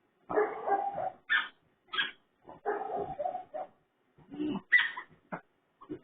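A raccoon vocalising in a string of short, harsh, pig-like grunts and squeals, broken by brief pauses.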